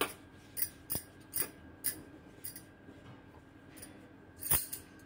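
Bangles on a wrist jingling in short light clinks as the hand spreads ghee over a rolled paratha: several quick clinks in the first two seconds and a louder one near the end. A faint steady high hum runs underneath.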